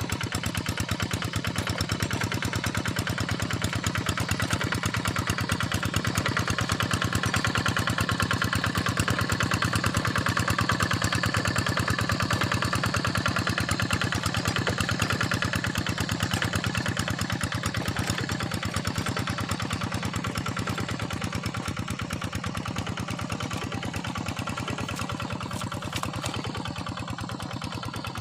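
Quick Impala two-wheel hand tractor's single-cylinder diesel engine running steadily under load as it works a wet field, growing louder toward the middle and easing off a little near the end.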